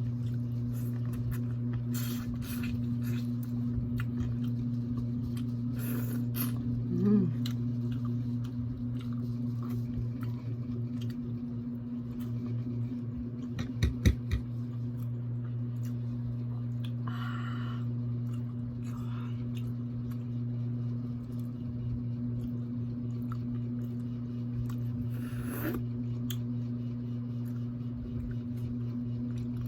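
Seafood being eaten by hand: scattered scrapes, cracks and squishy handling sounds of shells and utensils, over a steady low hum. A few sharp knocks come about fourteen seconds in.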